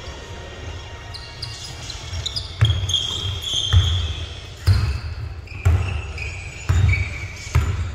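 A basketball bouncing on a gym court, dribbled at about one bounce a second from a few seconds in, with short high squeaks between bounces.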